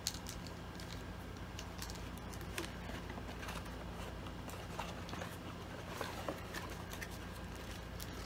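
Cardboard camera packaging handled by hand: scattered light clicks and short rustles as items are lifted out of the box, with a sharper click right at the start, over a low steady hum.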